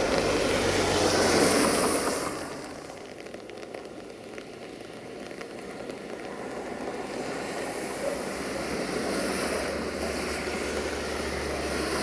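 Rail traffic rumble that fades out about two seconds in, then a diesel railcar approaching, its steady low engine drone growing louder over the second half.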